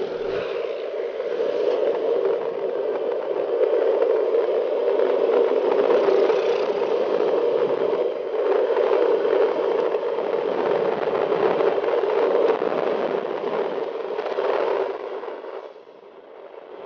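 Steady noise of a bicycle in motion, tyres on the road and air rushing past, dropping away suddenly about fifteen seconds in.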